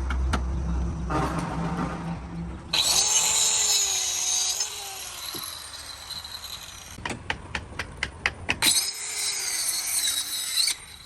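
A power tool run in two bursts of about two seconds each, a harsh high-pitched whine as it works into the material, with a run of sharp knocks between the bursts.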